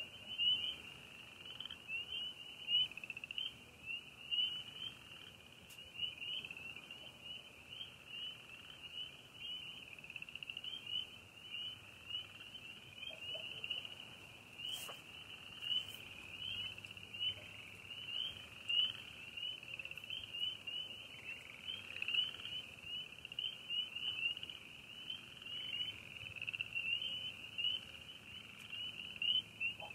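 Night chorus of many frogs: short, high-pitched calls overlapping in a continuous din.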